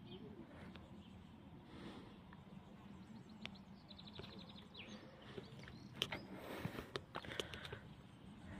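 Faint outdoor background with a bird's quick run of high chirps about four seconds in, and a few sharp clicks a couple of seconds later.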